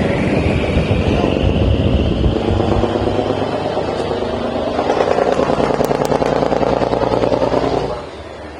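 Patrol boat's engine running hard at speed. Its level drops sharply about eight seconds in.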